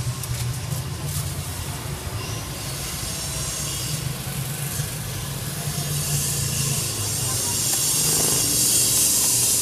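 Street traffic noise: a steady low engine hum under a broad hiss, growing louder over the last few seconds.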